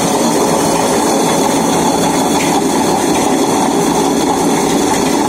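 Butterfly Flora Plus 2 kg table-top wet grinder running steadily, its stone rollers turning inside the stainless steel drum.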